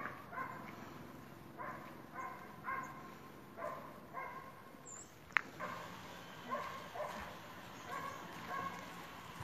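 A dog barking faintly and repeatedly, short barks coming about one or two a second. There is a single sharp click about five seconds in.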